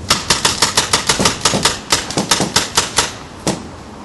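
Paintball markers firing a rapid string of sharp pops, about six a second, for about three seconds, then a single shot a moment later.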